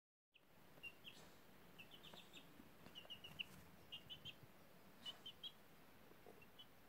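Young poultry peeping softly: short high peeps in quick runs of two to four, coming every second or so.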